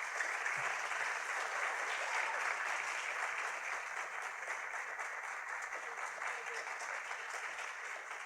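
Audience applauding steadily after a piano piece ends, beginning to die away near the end.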